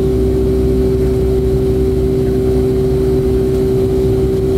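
Boeing 757-200's Pratt & Whitney PW2000 turbofan engines heard from inside the cabin in flight after takeoff: a steady low drone with two steady humming tones over a rumble.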